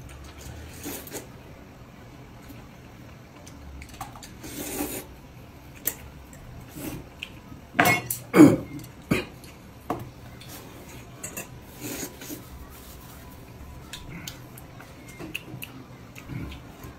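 Mealtime eating sounds: noodles slurped from a bowl, with chopsticks and a ladle clinking and scraping against stainless-steel bowls and a hotpot. Scattered short clicks and rustles, with the loudest cluster of clinks and slurps about halfway through.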